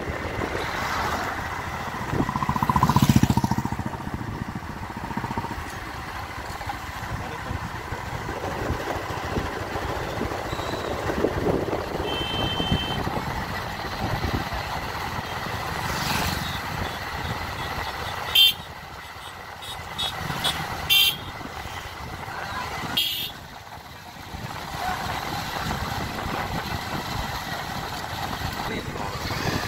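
Road traffic going by: motorcycles and other small vehicles pass, one loudly about three seconds in. A short two-tone beep comes near the middle, and a few sharp clicks follow later.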